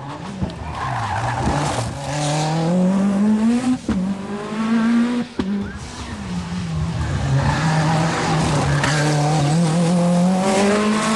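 Lancia Delta S4 Group B rally car's supercharged and turbocharged four-cylinder engine accelerating hard, its pitch climbing through the gears. There are brief dips at the shifts, about four and five and a half seconds in, then a long nearly steady pull that rises again near the end.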